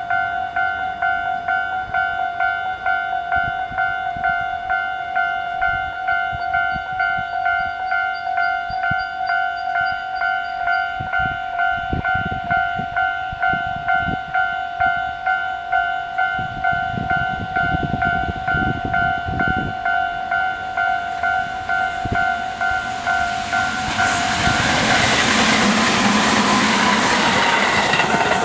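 Japanese railway level-crossing alarm ringing its standard electronic 'kan-kan' bell, an even two-tone strike about twice a second. The approaching train rumbles on the rails from about halfway, and the Tobu 20400-series electric train passes loudly over the crossing in the last few seconds as the bell cuts off.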